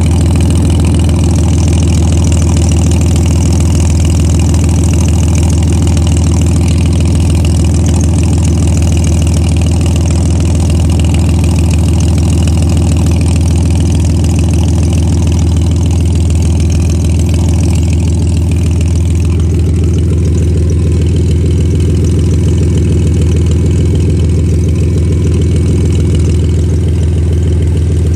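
Engine idling steadily with a rapid, even pulsing from the exhaust, the sound of an exhaust leak.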